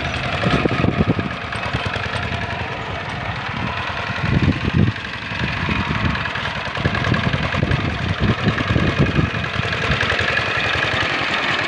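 Single-cylinder Dongfeng diesel engine of a Quick Impala hand tractor running under load as it works through flooded paddy mud. The chugging is fast and steady and swells louder a couple of times.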